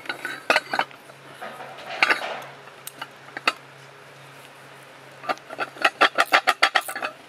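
Sharp metal knocks and clanks as the steel expander cone of a pipe-bursting head is handled and worked into place by hand: a few separate knocks, then a quick rattling run of about a dozen knocks near the end.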